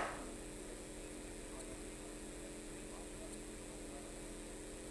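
Steady electrical mains hum with faint, indistinct voices underneath, and one short noisy burst right at the start.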